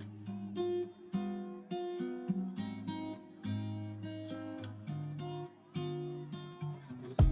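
Background music: acoustic guitar picking and strumming chords at a moderate pace.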